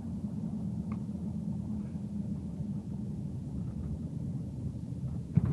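2011 Subaru Forester running at low speed, a steady low rumble of engine and road noise heard from inside the cabin. A short knock near the end.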